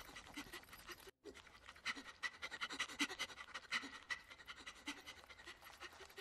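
An animated slug monster panting in rapid, short, effortful breaths with small strained grunts, puffing hard as it labours along at a crawl. The sound breaks off briefly about a second in, then the panting resumes.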